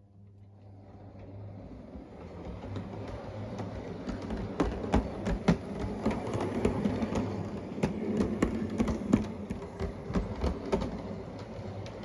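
O gauge model tank locomotive and brake van running along the track. It grows louder as it nears and passes close by, then eases off, with a steady rumble of wheels and motor broken by many sharp clicks as the wheels cross rail joints and points.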